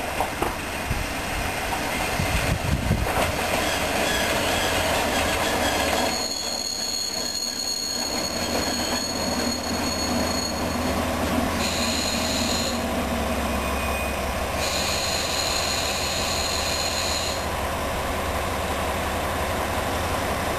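Orange KiHa 40-series diesel railcar pulling into the station and slowing to a stop: a low diesel engine rumble runs under rising wheel-on-rail noise with a few knocks, then the brakes squeal in high steady tones, one squeal of about five seconds from about six seconds in, then two shorter ones as it comes to a halt.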